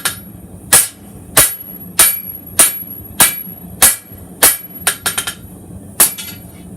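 Hand hammer striking hot steel on an anvil in a steady rhythm, about one blow every 0.6 seconds, each with a bright metallic ring, with a quick run of lighter taps about five seconds in: hand forging, drawing out the taper of a chef's knife blade toward its point.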